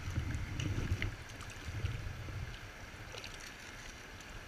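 Rushing river water flowing past, with a low rumble that swells and fades and a few faint splashes from a hand working in a landing net held in the current.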